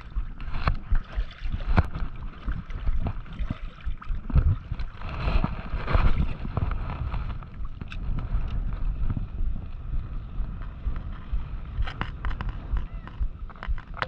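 Strong wind buffeting the microphone in uneven gusts, over shallow seawater splashing and lapping.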